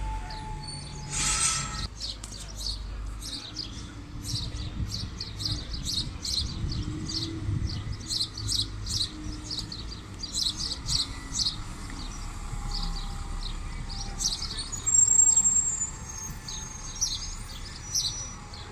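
Small birds chirping in quick repeated bursts over the low rumble of bus and traffic engines, with a short hiss about a second in.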